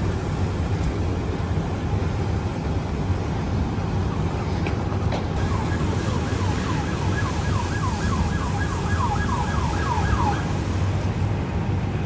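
An emergency vehicle siren in a fast yelp, about three sweeps a second, starting about five seconds in and stopping about five seconds later. It sits over a steady low rumble.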